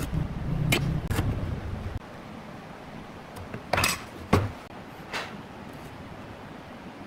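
Pine boards and a steel ruler handled on a wooden workbench: a low rumbling scrape for about the first two seconds, then a few sharp knocks and taps as pieces are set down.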